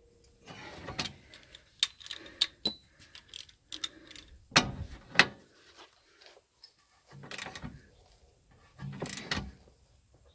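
Metal tools and parts clinking and knocking during work on a car's rear suspension, with a handful of sharp metallic clanks, some ringing briefly, and short rattles between them.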